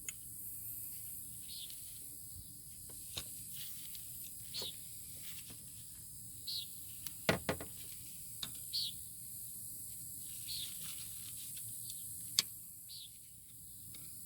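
Scattered light metallic clicks and knocks of hand tools on the brake caliper hardware as the pad retaining spring is worked off, the loudest a double knock about halfway through.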